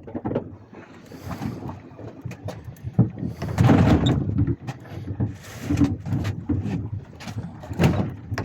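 Irregular knocks and rustling on a small fishing boat, with a louder stretch of noise about three to four and a half seconds in.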